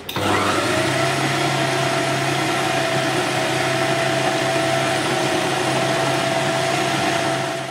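Electric food processor motor running steadily, its blade mincing raw boneless chicken with milk-soaked bread into a paste. It starts at once and winds down near the end.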